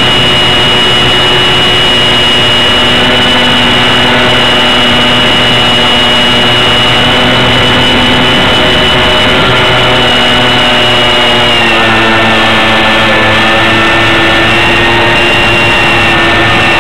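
RC plane's motor and propeller running steadily, heard close up from a camera on board, with a high whine over a noisy rush of air. About twelve seconds in the pitch shifts lower, as with a throttle change.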